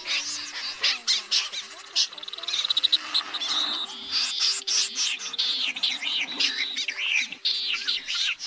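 A flock of common snipe calling: many short, harsh calls overlapping without pause, with a fast run of ticks about three seconds in.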